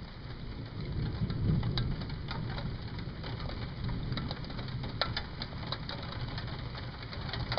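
Distant thunder rumbling low, swelling about a second in, with scattered ticks of raindrops.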